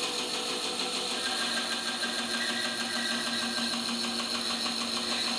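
Band saw running steadily, its blade cutting a small trapezoid-shaped block off the end of a wooden board.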